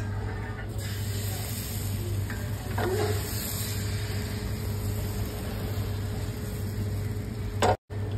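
Rice batter sizzling on a hot griddle: a steady frying hiss over a low hum, with the sound cutting out briefly near the end.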